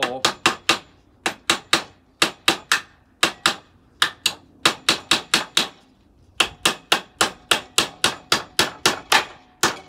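Claw hammer driving nails into wooden boards: runs of sharp blows, about four a second, broken by short pauses between nails.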